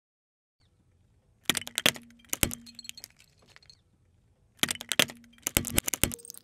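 A car tyre crushing brittle objects under its weight: two bursts of sharp cracking and snapping, each about a second long and about three seconds apart. The second burst comes as the tyre flattens a row of plastic toy wristwatches.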